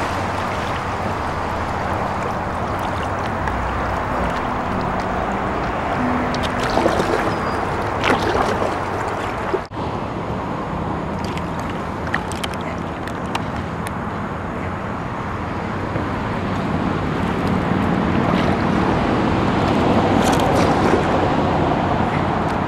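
Kayak paddles dipping and splashing in river water, with water sloshing against the kayak hulls as a steady rushing wash and a few light knocks.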